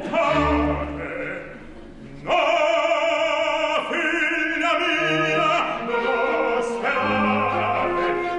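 Live opera with orchestra: the orchestra sounds a chord that fades away, then an operatic voice with strong vibrato comes in about two seconds in and sings over the orchestra.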